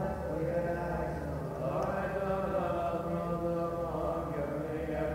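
Syriac Orthodox liturgical chant: voices singing on long, slowly moving held notes, over a steady low hum.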